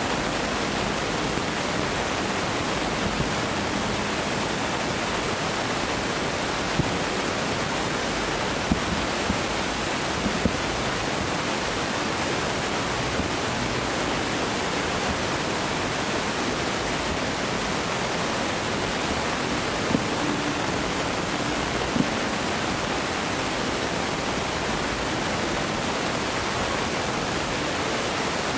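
Steady rushing background noise, with a handful of faint sharp pops from distant fireworks scattered through it.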